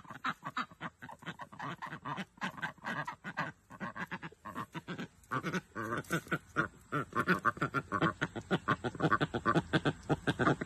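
A group of white domestic ducks quacking in a quick, continuous run of short calls that gets louder about halfway through.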